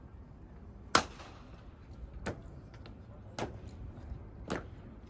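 Guards' boots stamping on the cobblestones in a slow, measured ceremonial step: four sharp strikes about a second apart, the first the loudest.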